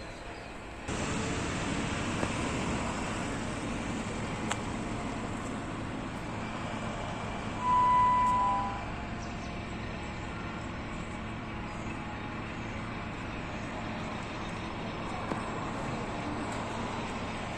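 Steady road traffic noise, which gets louder suddenly about a second in. About eight seconds in, a single clear tone sounds for about a second and is the loudest thing heard.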